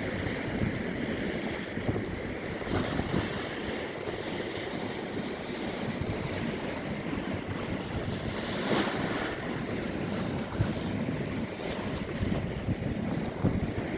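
Steady rush of moving water with irregular crackles and knocks, and a brief louder hiss just past the middle.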